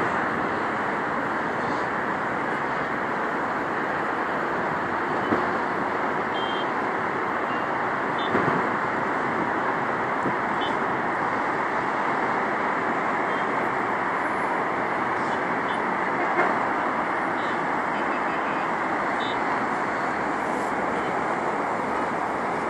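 Steady wash of city road traffic, with a few brief knocks along the way.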